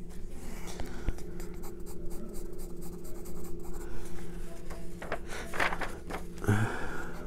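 Pencil shading on paper: quick repeated strokes, over a steady low hum.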